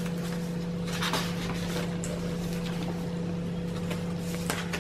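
Pages and tags of a handmade paper junk journal being turned by hand, with soft paper rustles about a second in and again near the end, over a steady low hum.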